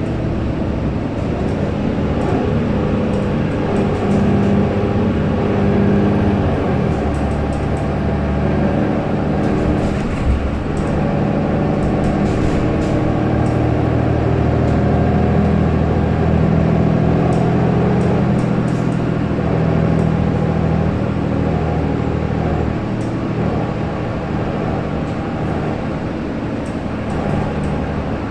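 Mercedes-Benz O530 Citaro city bus's diesel engine and drivetrain running under way, heard from inside the saloon, the engine note shifting up and down in pitch as the bus gathers and loses speed. A sharp click about ten seconds in and light interior rattles.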